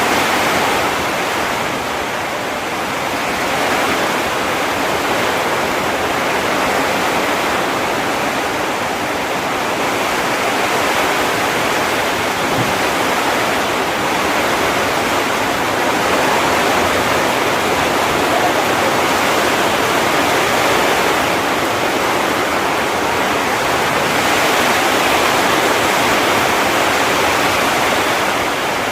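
Heavy rain pouring down steadily: a dense, even hiss that swells and eases only slightly.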